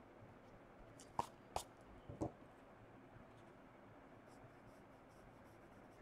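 Faint rubbing of an eraser and pencil on drawing-book paper, with three sharp light clicks between about one and two and a half seconds in, as tools are handled on the desk.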